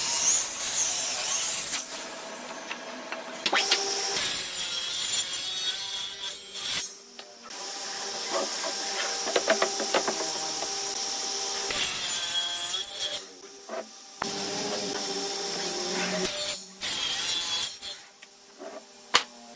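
Woodworking tools cutting and rubbing on wood, heard in several short stretches that change abruptly from one to the next.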